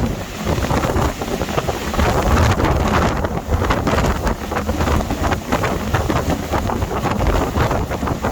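Storm-force wind buffeting the microphone in uneven gusts over a heavy low rumble.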